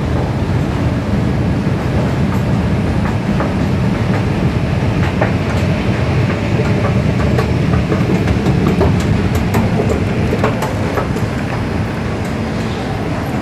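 Steady low rumble of an electric MRT train at the station, with scattered light clicks and clatter through the middle.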